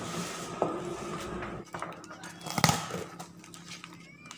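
Rustling and crinkling of plastic and paper packaging as a wrapped air-rifle stock is pulled out of its shipping box, with a louder sharp handling noise about two and a half seconds in.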